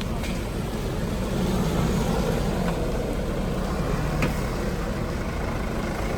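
Off-road vehicle engine running steadily, with a couple of faint knocks about halfway through.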